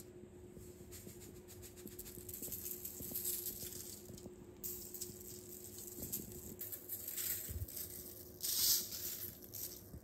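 Seasoning being sprinkled onto raw broccoli florets on a foil-lined baking tray: a light patter of fine ticks with a few short hissy bursts, the loudest near the end, over a faint steady hum.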